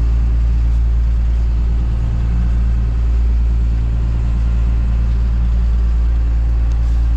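A fishing boat's engine running at a steady drone, heard from inside the wheelhouse.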